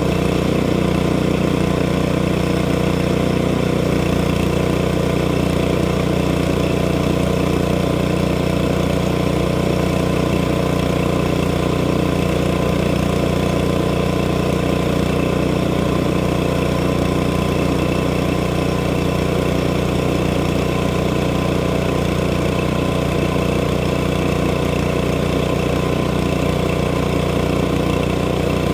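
Small gasoline engine of a portable bandsaw sawmill running steadily under load as the mill is pushed along a log.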